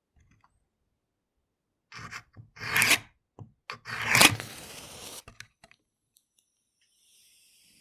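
A match struck against the striker strip of a matchbox. There are a couple of light scratches, then a loud scrape about three seconds in. A second loud strike comes around four seconds and is followed by about a second of hissing flare as the match catches.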